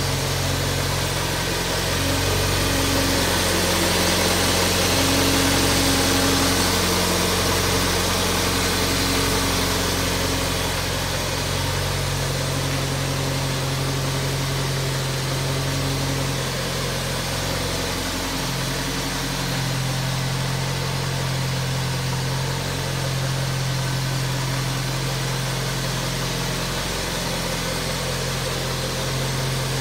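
A 2001 Toyota MR2 Spyder's 1.8-litre four-cylinder engine idling steadily as it warms up from a cold start at about 45 °F. Its note shifts slightly about two-thirds of the way through.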